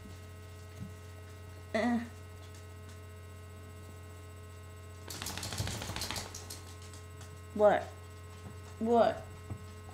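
A steady low electrical hum under a few short voiced sounds: one brief one about two seconds in and two louder ones near the end, each bending in pitch. About a second of rustling noise lies between them.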